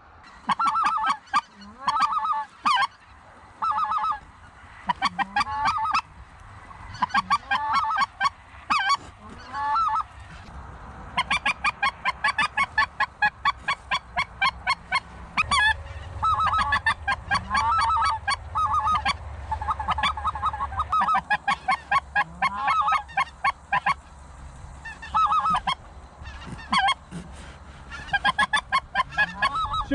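Goose honking: fast runs of short honks and clucks, loud and close, repeated again and again with short pauses between runs. A low rumble sits underneath for several seconds in the middle.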